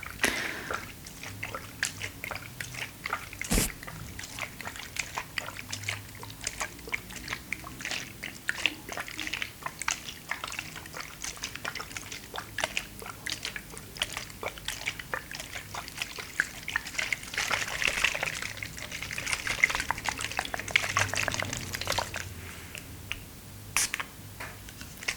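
Close-miked water sounds: a steady run of small drips, splashes and clicks, with a thicker stretch of sloshing about two thirds of the way in.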